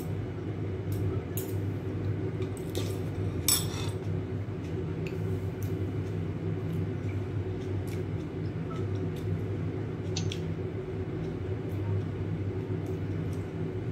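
Metal spoon and chopsticks clinking now and then against a ceramic soup bowl during eating, one louder ringing clink a few seconds in, over a steady low hum.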